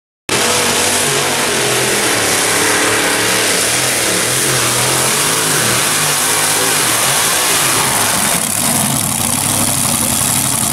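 Modified pulling tractor's engine at full throttle under load during a pull, its pitch wavering up and down. About eight and a half seconds in it drops back and settles to a lower, steadier running as the pull ends.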